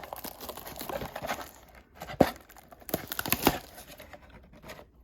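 Wrapping of a trading-card blaster box being torn and crinkled open, with two sharp crackles about two and three and a half seconds in, quieter near the end.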